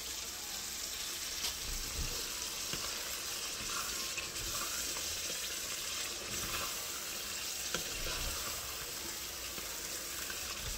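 Minced meat and chopped spinach sizzling steadily in a metal pot as a wooden spoon stirs it, with a few light taps of the spoon against the pot. This is the bhuna frying stage, once the cooking water has dried off.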